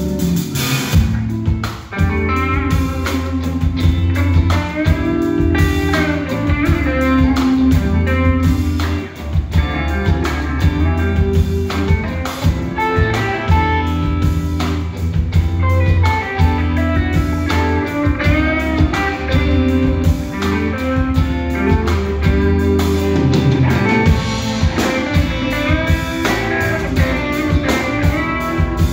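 Live rock band playing an instrumental stretch: electric guitars over bass guitar and drum kit, with no singing.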